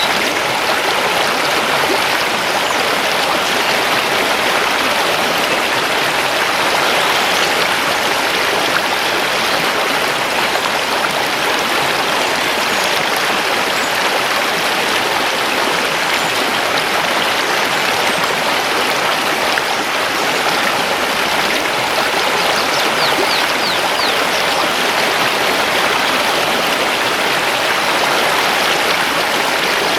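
Mountain river rushing and splashing over stones, a steady, unbroken water noise.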